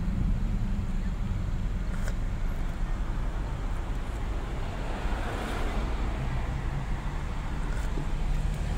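Road and engine noise of a moving car heard from inside it: a steady low rumble with tyre hiss, swelling for a moment about halfway through.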